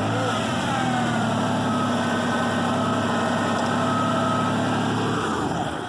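Pickup truck engine idling steadily just after starting, with a light high whine that settles lower during the first second or two. It is running again now that the corroded positive battery cable clamp has been cut back and restripped. The sound stops abruptly near the end.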